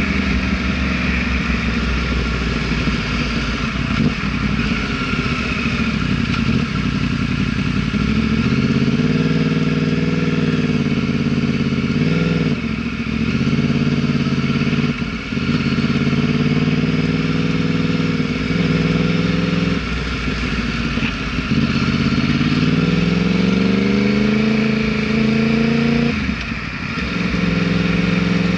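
Yamaha R1 motorcycle's inline-four engine under way, its revs climbing slowly and then dropping abruptly several times over, as when accelerating through the gears.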